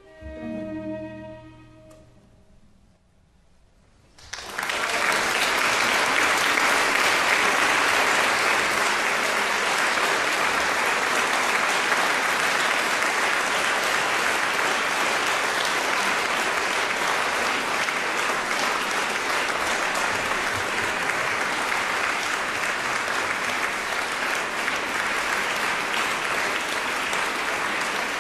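The last held chord of a solo violin with a chamber string ensemble fades out, followed by a short near-quiet pause. A little over four seconds in an audience starts applauding all at once and keeps clapping steadily.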